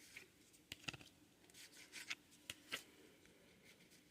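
Faint rustling and soft clicks of Pokémon trading cards being handled and slid past one another, several brief strokes.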